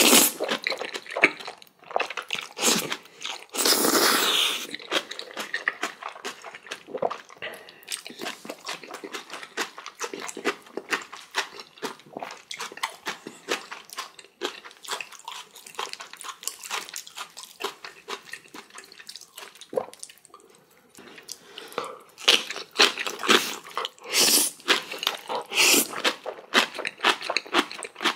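Close-miked eating sounds: wet chewing, crunching and biting of jajangmyeon noodles and spicy kimchi, many quick clicks and squishes. Louder, longer bursts come about four seconds in and again near the end, with a quieter spell in between.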